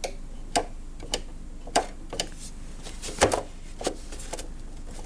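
Sharp mechanical clicks from a Saeco Vienna coffee machine under repair, about two a second at uneven spacing, some in close pairs, over a faint steady hum.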